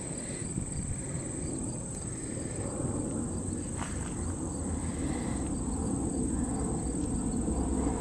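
Steady high-pitched insect chorus, with a low rumbling noise underneath that grows louder toward the end.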